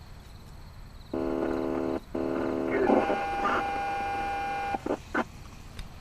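Two-tone sequential paging alert heard over a radio scanner: a steady tone of about a second, then a different, longer steady tone of nearly three seconds that cuts off sharply, followed by two short bursts of radio static.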